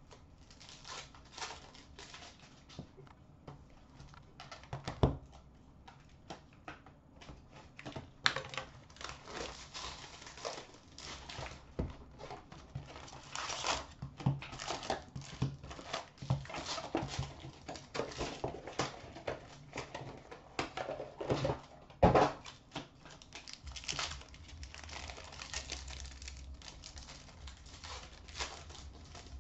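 Trading-card unboxing handling noise: a cardboard box sleeve opened, foil packs crinkling and tearing, and cards slid and tapped together. Irregular crackling and clicks throughout, with a sharp knock about five seconds in and another around twenty-two seconds.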